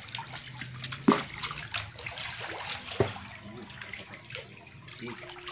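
Water splashing and sloshing in a concrete fish pond as a hooked catfish thrashes at the surface. Two brief sharp sounds stand out, about a second in and about three seconds in.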